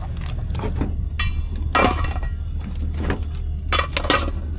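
Mud crab being broken up and cut on a plastic cutting board laid on a metal deck: a run of knocks, cracks and clinks, one ringing briefly a little after a second in. A steady low hum runs underneath.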